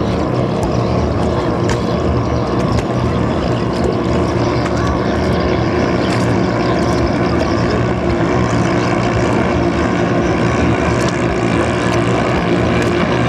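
Small 6–7 hp longtail engines of several ketinting racing boats running flat out, a loud, steady drone of overlapping engine notes with no letting up.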